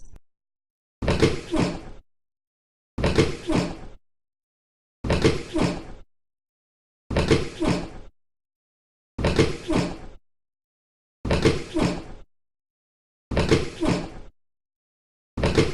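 Wooden chair creaking under shifting weight, a drawn-out creak of about a second repeated every two seconds or so.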